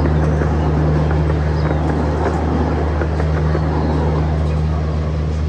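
Ride-on miniature railway train running past: a steady engine hum with the wheels rattling on the track.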